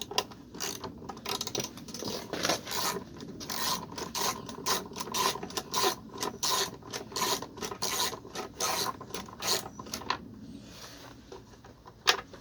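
Husky ratchet wrench with an 8 mm socket clicking in quick runs as it is swung back and forth to turn out small bolts, the clicking stopping about ten seconds in.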